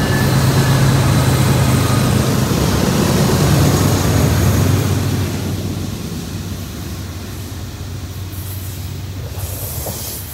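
Union Pacific diesel-electric freight locomotives passing close by, their engines running with a steady low drone. About halfway through the engine sound fades, leaving the quieter rolling of double-stack container well cars on the rails.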